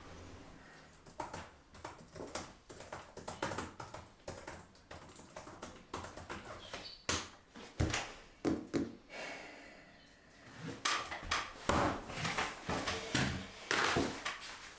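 Typing on a laptop keyboard and clicking a computer mouse: irregular quick clicks and taps. Near the end come louder knocks and scuffs as the laptop lid is shut and a person gets up from the table.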